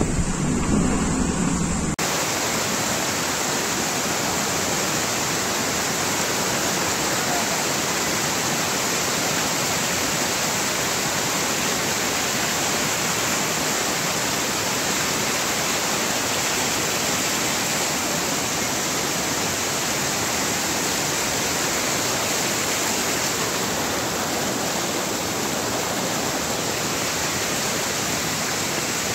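A low vehicle rumble for about two seconds, then an abrupt change to a steady, even rushing of water that runs on unbroken.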